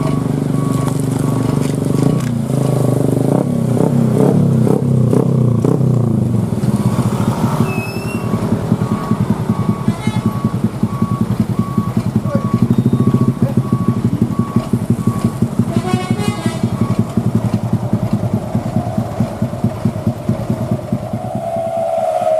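Heavy truck's diesel engine running under load with a steady, pulsing low rumble. Through much of it a repeating electronic beep sounds about twice a second, and near the end a whining tone rises.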